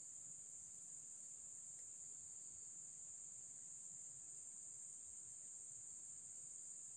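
Faint, steady, high-pitched chirring of an insect chorus that runs on without a break.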